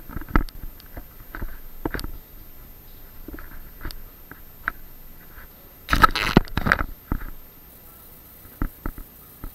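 Handling noise from an action camera on a selfie stick: scattered clicks, knocks and rubbing, with a louder scraping rustle about six seconds in and a couple more clicks near the end.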